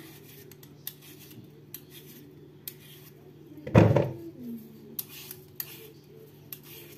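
Hand vegetable peeler scraping short strokes on a raw potato, with one much louder knock about four seconds in and a faint steady hum underneath.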